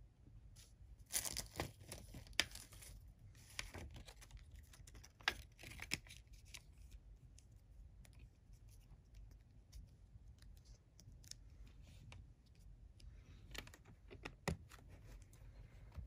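Paper CD booklet and obi strip rustling as they are handled in a plastic jewel case, in short bursts, with a few sharp plastic clicks, one of the loudest near the end.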